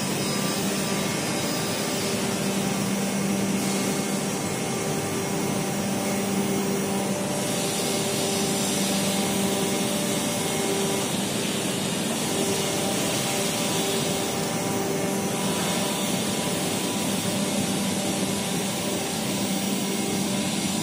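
Hydraulic mast goods lift's power pack, its electric motor and pump, running steadily while the lift platform rises: a steady hum over an even rushing noise.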